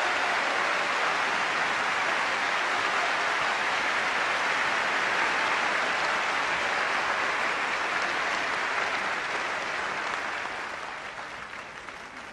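Large audience applauding steadily in a hall, the clapping dying away over the last few seconds.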